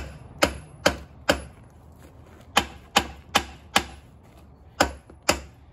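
Hammer blows on the rusted cylinder head of a small-block Chevy 350, struck to knock the rust-stuck head loose from the block. About ten sharp metal strikes come in three runs of four, four and two, each with a short ring.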